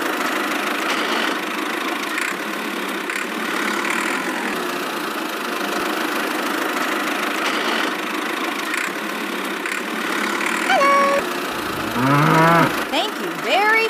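Miniature toy tractor running steadily with an engine-like sound as it drives. Near the end there is a short falling tone, then a cow's moo.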